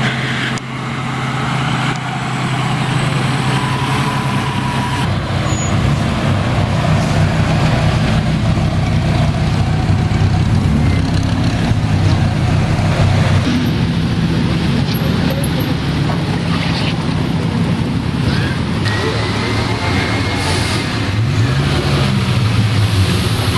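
Car engines running at low revs on a street, a steady low drone with a short rise in pitch near the end.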